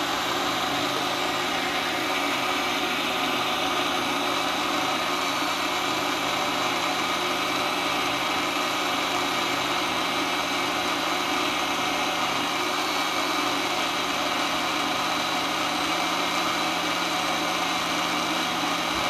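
Countertop electric blender running steadily at full speed, grinding a watery coriander and mint chutney into a smooth green paste.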